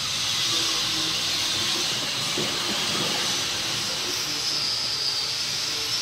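Steady hissing background noise, with faint low tones underneath.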